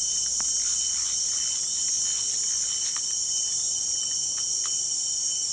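A dense, steady chorus of insects: a loud high-pitched hiss that never lets up, with one thin steady whistle-like tone running through it and a few faint ticks.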